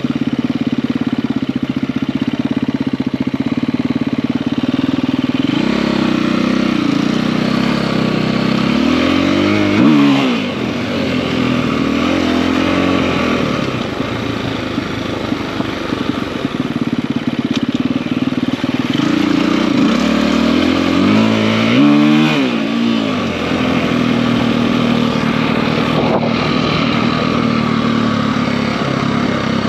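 KTM EXC-F four-stroke single-cylinder enduro bike with a 280 cc big bore kit, running under way. The revs swell up and drop back twice, about ten seconds in and again a little past twenty seconds.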